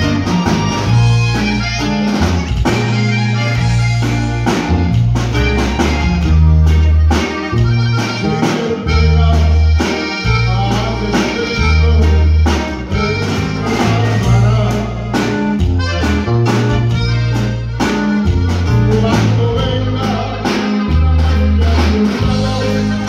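Live band playing: an accordion carries the melody over electric bass, guitar and drum kit, with a steady beat.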